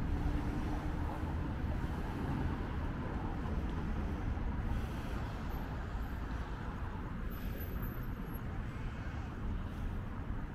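Steady city street ambience: a continuous low rumble of road traffic with no single event standing out.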